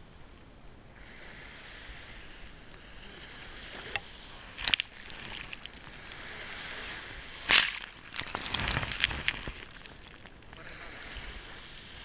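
Small waves of surf washing up a sandy, shelly beach: a steady fizzing hiss of swash and foam, broken by several sharp splashes as waves break, the loudest about halfway through.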